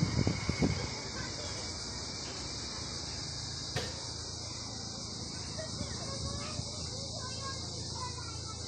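Steady, high-pitched drone of insects in summer vegetation, with a few gusts of wind on the microphone in the first second.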